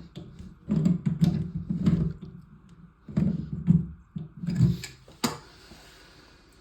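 Irregular knocks and clunks of toilet tank parts and tools being handled and fitted, with a few sharp clicks. Near the end a soft hiss follows and fades.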